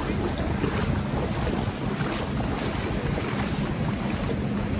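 Wind buffeting the microphone over the steady low hum of a boat's engine.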